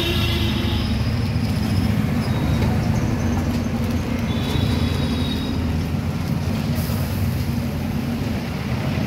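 Steady low rumble of a moving vehicle, with thin high squeals near the start and again about halfway through.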